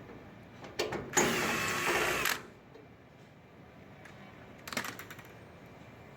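Cordless drill-driver whirring in a single burst of about a second, backing out a screw, with a click just before it and a quick cluster of small clicks and rattles later on.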